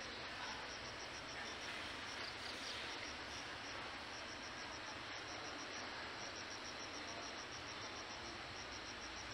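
An insect chirping in a steady, even rhythm, about five high chirps a second, over a constant hiss of outdoor ambience.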